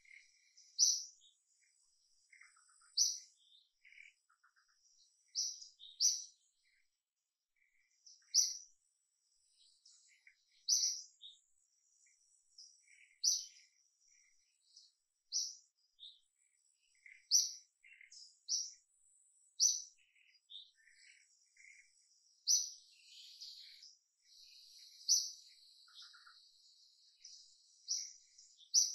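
Birds chirping: a sharp, high call repeats about every two seconds, with softer chirps between. A faint steady insect hum runs under them and grows thicker near the end.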